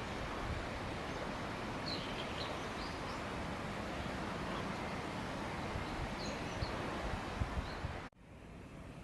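Outdoor background noise, a steady rushing hiss, with a few faint high chirps about two and six seconds in. It drops suddenly to a quieter background near the end.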